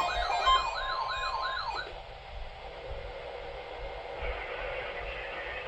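Electronic siren wailing in a fast yelp, its pitch sweeping up and down about three times a second, then cutting off abruptly about two seconds in, leaving a low hiss.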